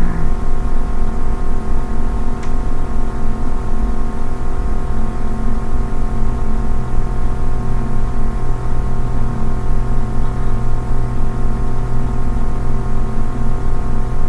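A steady droning hum made of several held tones, with a faint tick about two and a half seconds in.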